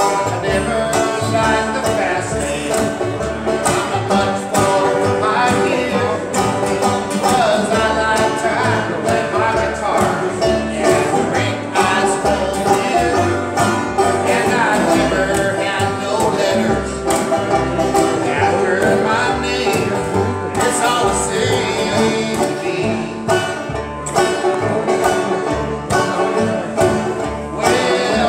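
Live bluegrass band playing, banjo, acoustic guitar and upright bass together, with a steady walking pulse of plucked bass notes under the banjo.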